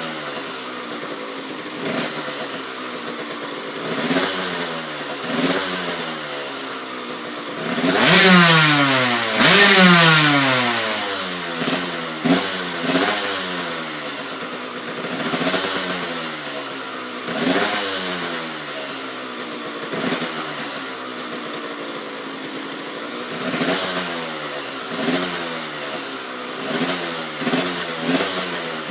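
2007 KTM 85 SX's 85 cc two-stroke single-cylinder engine, breathing through a KTM Powerparts full exhaust system, being blipped again and again: each throttle blip revs it up and lets it fall back. The two biggest, loudest revs come about eight and ten seconds in.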